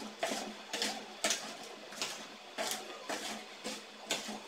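Cut raw mango pieces coated in spices and juice being mixed by hand in a plastic basin: wet squelching and rustling strokes in a quick, even rhythm, nearly three a second.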